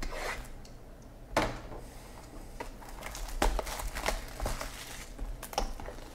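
Clear plastic shrink wrap being peeled and pulled off a cardboard trading-card box: scattered crinkles, rustles and short clicks of plastic and cardboard handling.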